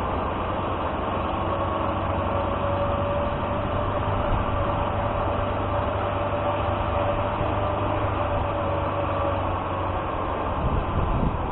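ZAZ-968M Zaporozhets's air-cooled V4 engine running steadily while the car drives, a low drone with a steady whine over it that eases off near the end.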